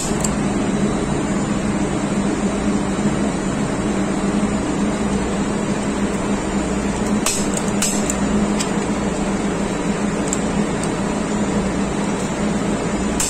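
Steady loud machinery drone with a low hum. Over it come a few sharp clicks, two close together about seven to eight seconds in, as a click-type torque wrench is pulled to 60 N·m on a diesel fuel injection pump's delivery valve studs.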